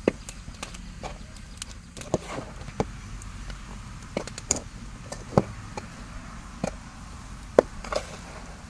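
Wooden mwiko stirring and pressing stiff ugali in a metal pot: irregular knocks and scrapes of the stick against the pot, a sharp knock every second or so.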